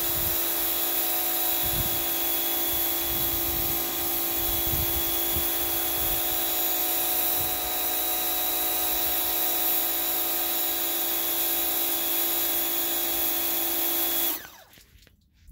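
Pressure washer spraying a wooden seat: a steady hiss of the jet over the even whine of the pump motor. It cuts off suddenly near the end.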